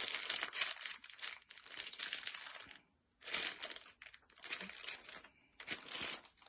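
Packet of metal mounting hardware being handled: rustling with small metal clinks, in a series of short bouts.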